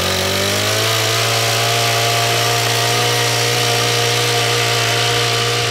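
Honda FG110 mini tiller's GX25 four-stroke engine running steadily at working speed, driving the edger tine as it cuts a lawn edge. The pitch rises a little in the first second, then holds steady.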